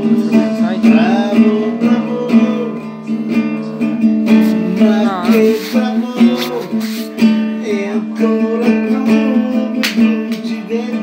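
Nylon-string classical guitar strummed in steady chords, with a man singing over it in places, holding wavering notes.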